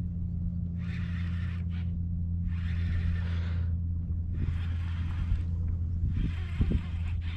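Kayak paddle strokes in the water, an even swish about every second and a half, over a steady low hum.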